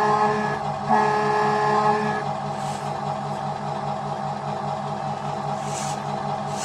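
RC model truck's simulated diesel engine idling steadily with a pulsing beat, over which a truck air horn sounds, cutting off about half a second in and blowing again for about a second. Two short hisses follow later, like an air-brake release.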